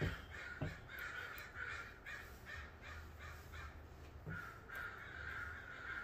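Crows cawing, a quick run of short harsh caws at about three a second, then one longer drawn-out caw near the end. A soft knock at the very start and another just after.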